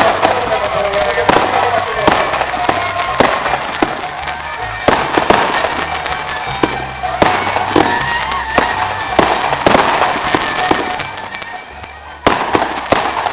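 Fireworks going off: a string of sharp bangs at irregular intervals, several a second at times, over a continuous crackling hiss.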